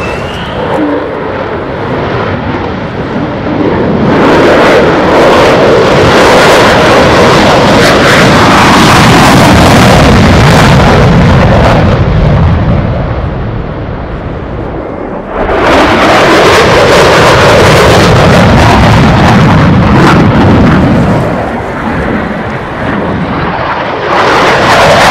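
F-35C fighter jet's single F135 afterburning turbofan, very loud jet noise with the afterburner lit as it turns and passes. It swells over the first few seconds, eases off around the middle, comes back suddenly about fifteen seconds in, and surges again near the end.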